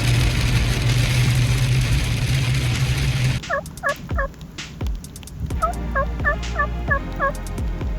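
Steady rain noise with a low hum that cuts off abruptly about three and a half seconds in. Then a wild turkey gobbles twice, each a quick run of rattling, yodelling notes, the second longer, over scattered rain taps.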